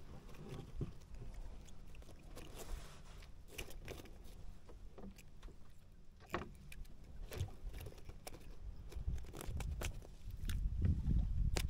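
Scattered small clicks and taps of metal pliers and tackle as a hook is worked out of a small fish, over a low rumble of wind on the microphone that grows near the end.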